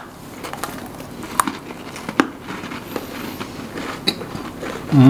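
Scattered small clicks and crackles of people eating snacks at a table, a few sharper ticks among them.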